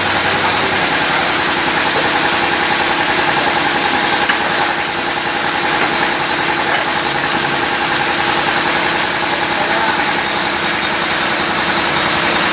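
Concrete paving block machine running steadily with a fast, even vibrating rattle.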